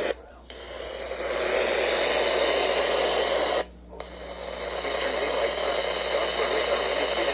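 Weather radio receiver hissing with static from a weak, long-distance NOAA Weather Radio signal. The hiss drops out abruptly twice, just after the start and about halfway through, and each time fades back in over about a second.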